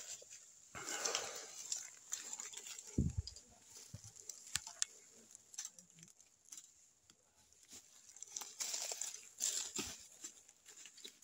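Footsteps crunching through dry brush, leaves and twigs, with branches rustling and cracking in irregular bursts. There is a louder stretch about a second in and another near the end.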